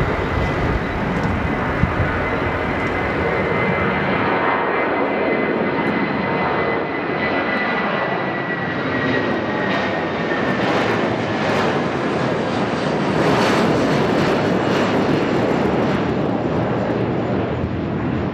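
Airbus A380 jet engines running loud and steady, with a thin high whine that slowly drops in pitch through the middle.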